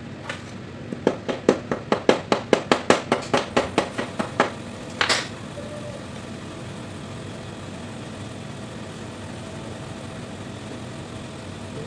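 A quick, even run of about seventeen sharp clicks, about five a second, while a brass hydraulic solenoid valve block and its fittings are handled, followed by one short rustle. A steady hum runs underneath.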